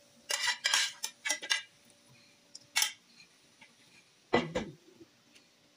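Spatula scraping and clattering against a pan as stir-fried bitter gourd is pushed out onto a plate: a quick run of scrapes in the first second and a half, one more a little before three seconds in, and a single louder knock a little past four seconds in.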